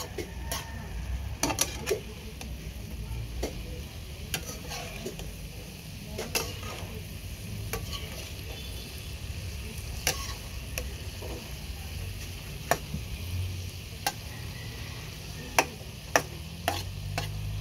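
Sliced coconut heart sizzling in a nonstick frying pan as a metal slotted turner stirs and scrapes it, with scattered clicks of metal on the pan and two sharper knocks near the end.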